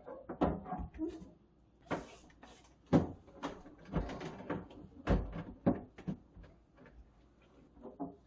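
Plastic containers and refrigerator shelves or drawers knocking and clattering while a refrigerator is emptied and wiped out, a dozen or so sharp clacks at irregular intervals, with short stretches of rubbing between them.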